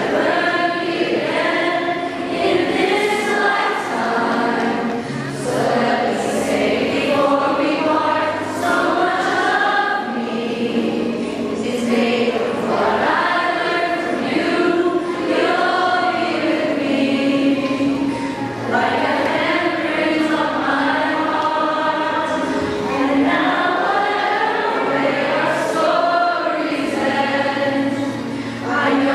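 A large choir of schoolchildren and adult women singing a song together, with many voices holding sustained notes.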